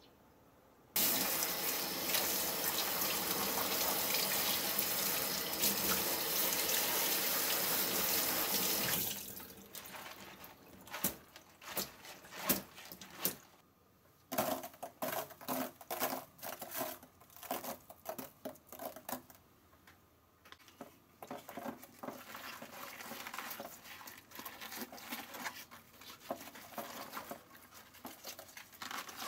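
A kitchen tap runs steadily for about eight seconds, rinsing the napa cabbage, then shuts off. After that come scattered small clicks and rustles: coarse salt pattering into a plastic pickling tub, and cabbage leaves being handled and salted.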